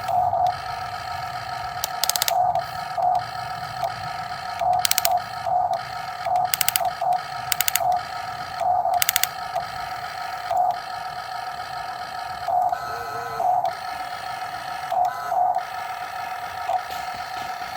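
Huina remote-control toy excavator's small electric motors running with a steady whine that swells regularly, broken by five short bursts of rapid gear clicking.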